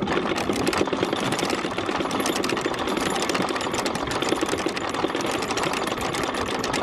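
Electric anchor windlass paying out chain, the links clattering rapidly and steadily over the gypsy and bow roller as the chain runs out.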